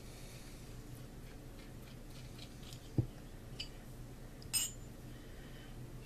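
Light handling of a steel shaft and loose transfer-case parts on a towel-covered bench: a soft thump about halfway through and a short metallic clink a moment later, over a steady low hum.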